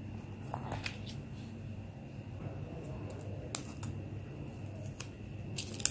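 Scattered light clicks and crackles as a Kinder Joy's plastic cup and foil lid are handled and peeled open, louder near the end, over a steady low hum.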